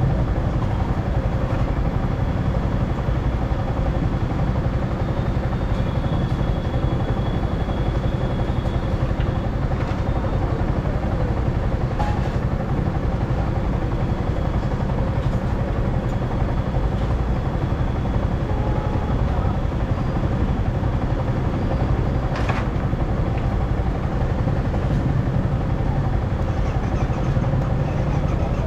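Motorcycle riding at steady speed: constant engine and road-wind rumble, with a couple of brief clicks.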